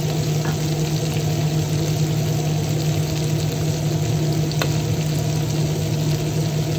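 Yellow grouper steaks frying in hot oil in a cast-iron pan: a steady sizzle with a few faint pops, over the steady hum of a kitchen range-hood fan.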